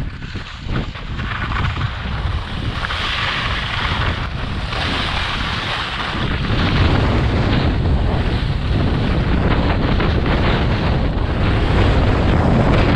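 Wind buffeting a body-worn camera's microphone during a downhill ski run, with the hiss of skis sliding on snow; it grows louder about halfway through.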